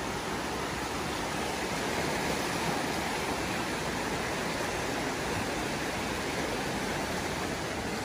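Creek in flood, brown water rushing fast and high against its banks: a steady, even roar of running water.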